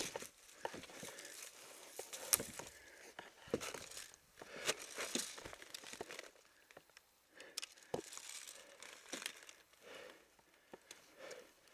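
Irregular rustling, crinkling and crunching of an airsoft player moving over dry brush, plastic sheeting and debris, with scattered sharp knocks of gear against cover, the loudest about two seconds in.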